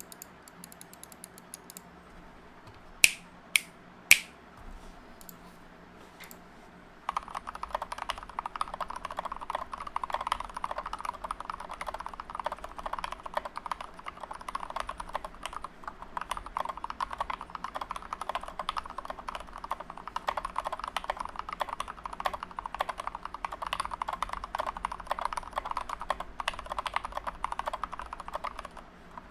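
Typing on a GK61 mechanical keyboard with lubed Gateron Milky Yellow linear switches on an aluminium plate, no case foam, and SA-profile PBT keycaps. After a few faint taps and three loud sharp clicks about three to four seconds in, fast steady typing starts about seven seconds in and runs on as a dense stream of keystrokes.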